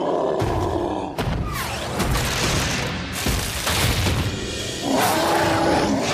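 Cartoon soundtrack: dramatic music over several heavy booming thuds, the footsteps of the giant cartoon bear stomping down the street.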